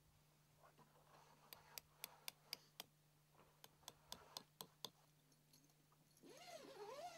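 Faint sharp clicks in two runs of about six, roughly four a second, then near the end the rasp of a tent door zipper being pulled.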